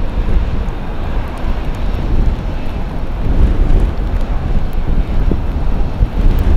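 Jet airliner engines rumbling steadily, with wind buffeting the microphone.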